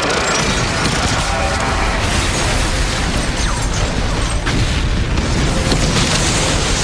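A sustained, dense rumbling blast sound effect, like a long explosion or energy-beam discharge, staying steady and loud for several seconds.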